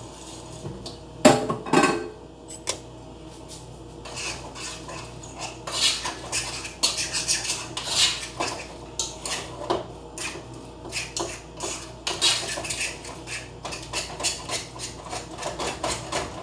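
A cooking utensil knocking and scraping against a frying pan while ground beef with taco seasoning and water is stirred: two loud knocks just over a second in, then a long run of quick clicks and scrapes.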